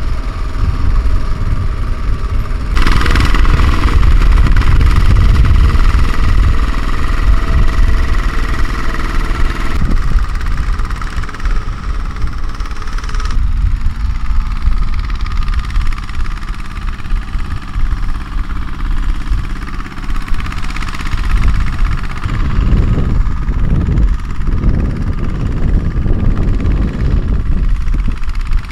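Single-cylinder diesel engine of a two-wheel walking tractor running under load, pulling a trailer loaded with rice sacks through a soft paddy. The sound shifts abruptly about three seconds in and again about thirteen seconds in.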